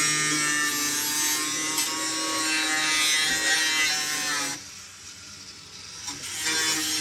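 Angle grinder with a cutoff wheel cutting through car-body sheet steel: a high motor whine over a harsh rasping hiss. It is let off about four and a half seconds in, the whine dropping in pitch as it stops, then runs again briefly near the end.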